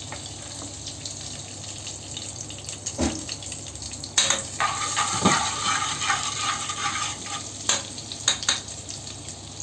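Butter and oil sizzling as they heat in a pan, the fat for a béchamel roux before the flour goes in, with a spoon stirring and knocking against the pan. The sizzle grows louder about four seconds in.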